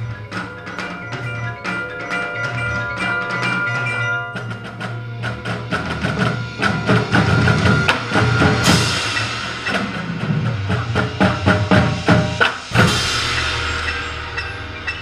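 Marching drumline and front ensemble playing together. Sustained pitched chords and low notes from the pit come first; then, after about four seconds, the snares, tenors and bass drums come in with fast, dense passages. Loud cymbal crashes come about nine and thirteen seconds in, and the last one is left ringing.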